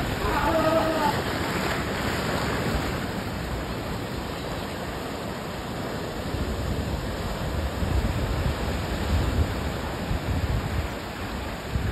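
Ocean surf washing and breaking around rocks, with wind buffeting the microphone in low rumbling gusts. A short pitched call sounds over the surf at the very start.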